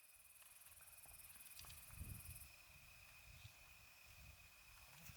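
Near silence outdoors: faint insects chirring in a fast, high trill that stops about halfway through, with soft low rumbles.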